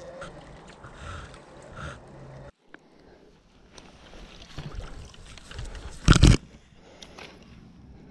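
Close rustling of clothing and a landing net on grass right at the camera, with one loud brushing knock about six seconds in. The first two and a half seconds hold a steady outdoor hiss with small ticks.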